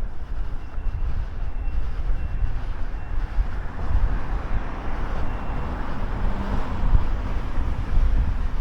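Wind rumbling on the microphone over outdoor traffic noise, with a vehicle passing that swells and fades in the middle.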